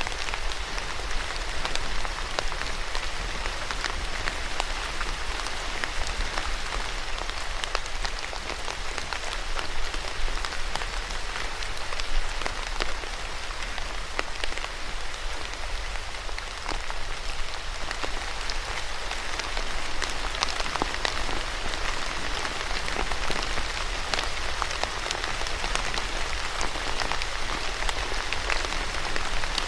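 Steady rain falling, with many separate drops ticking sharply through a dense, even hiss.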